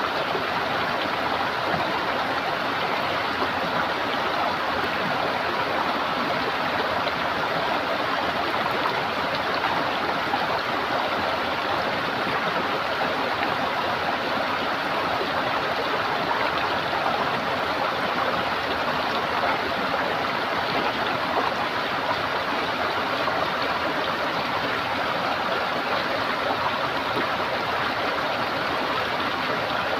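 Running water gurgling steadily, an even unbroken rush without pauses or sudden sounds.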